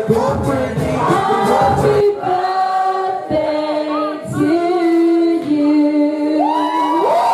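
Background music with a beat cuts out about two seconds in, leaving voices singing unaccompanied in long held notes, sliding up to a higher sustained note near the end.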